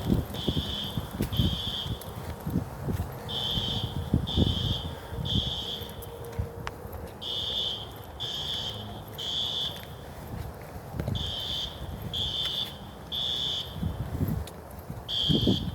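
Building fire alarm sounding high-pitched beeps in groups of three, about a second apart, with a new group every four seconds: the temporal-three evacuation signal.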